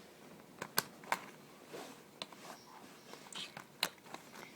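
Scattered light clicks and knocks, the sharpest in the first second and a half, from hands and tools working on an old Homelite XL12 chainsaw.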